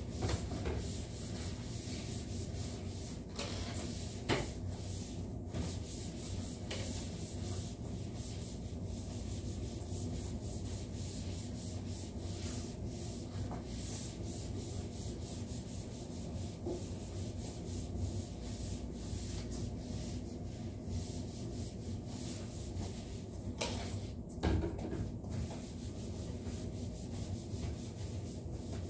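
Cloth wiping back and forth across a wooden tabletop, a steady rubbing, with a couple of light knocks, one about four seconds in and one near the end.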